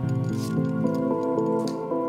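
Background music: held notes and chords that step to new pitches several times.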